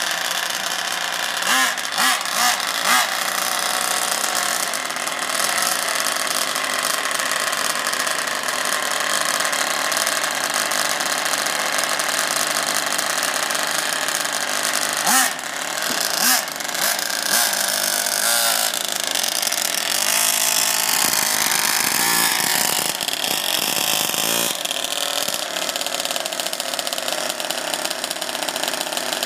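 Two small engines of an RC truck running as it drives, the pitch shifting with the throttle and a few short revs. The whine climbs higher and louder about two thirds of the way through.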